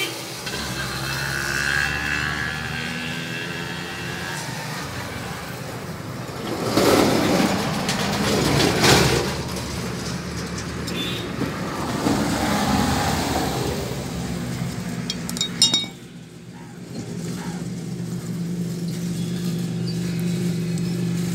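A motor vehicle engine running nearby as a steady low hum, swelling twice about a third of the way in. A few light metallic clicks come near the end as small metal pump parts are handled.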